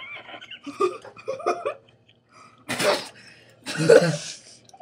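A person coughing: brief choppy vocal sounds, then two hard coughs about a second apart, the second the louder.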